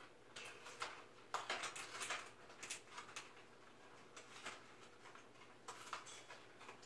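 Umbrella cockatoo chewing at a cardboard tube with her beak: faint, irregular crunching and crackling, in a busy cluster about a second and a half in and again near the end.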